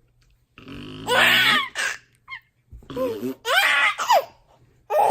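A baby laughing in two loud bursts, about a second in and again past the middle. Each burst follows a short, low, buzzy fart noise.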